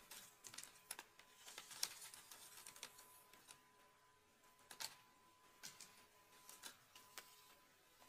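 Faint, irregular crackling rustles and small clicks of long hair being handled close to the microphone during braiding, coming in short clusters.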